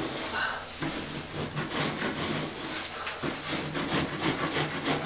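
Hand scraper pushed across water-soaked popcorn ceiling texture, scraping it off in quick, irregular rasping strokes.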